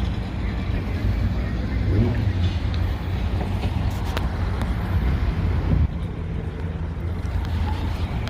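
Low engine rumble of classic cars driving slowly out past the spot, with the loudness dropping a little about six seconds in as one passes.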